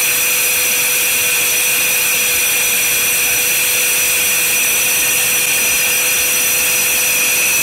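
Worx corded mini circular saw running at full speed with a steady high whine as a wooden block is fed into its blade; the pitch holds without dropping, with no sign of bogging down.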